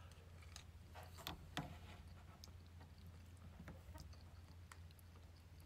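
Near silence: a few faint clicks and taps of eating utensils against plastic takeout containers, over a low steady hum.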